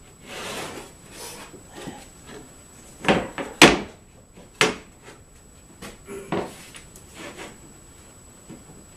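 A steel framing square being slid and set down on a plywood sheet: a brushing scrape near the start, then a few sharp wooden knocks, the loudest about three and a half seconds in, followed by lighter taps and rubs.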